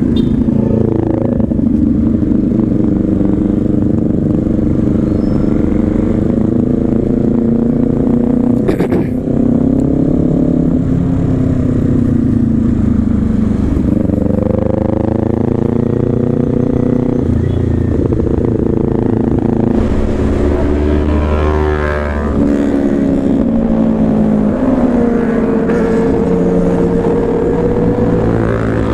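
Loud motorcycle engine under way, its pitch rising and falling with throttle and gear changes, over a low rumble of road and wind noise.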